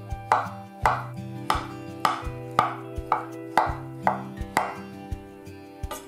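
Kitchen knife dicing a soft avocado on a wooden cutting board: quick sharp knocks of the blade against the board, about two a second, thinning out after about four and a half seconds. Background music plays under it.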